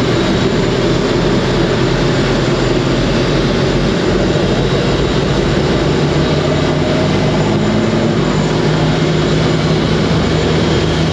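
Airbus A380's Engine Alliance GP7000 turbofan engines running, a loud steady jet rush with a high whine and low hum over it.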